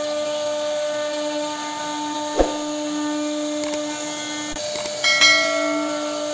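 CNC router spindle running at a steady pitched whine as its bit cuts into a wooden door panel. There is a sharp click about two and a half seconds in, and the sound gets briefly louder and brighter just after five seconds.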